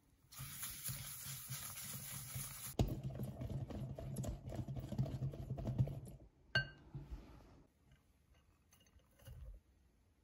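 A wire whisk beating egg whites and sugar in a glass bowl, with fast, rhythmic swishing and scraping strokes that stop about six seconds in. Just after, there is a single ringing clink of glass.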